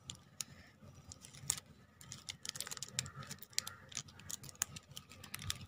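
Faint, irregular clicking and crackling of a woven plastic-wire basket being turned inside out by hand, its stiff plastic strands rubbing and clicking against each other.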